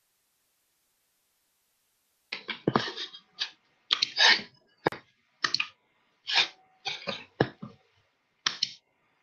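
A string of about a dozen short, sharp, irregular noises close to the microphone, starting about two seconds in after dead silence.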